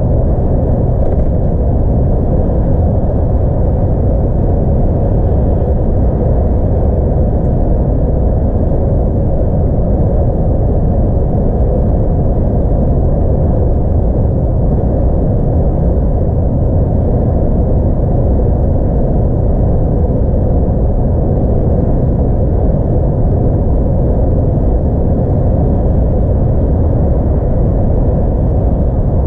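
DAF XF 106 truck with its 10.8-litre, 440 hp engine, driving on the highway: a steady low rumble of engine and road noise heard from the cab, with no change through the stretch.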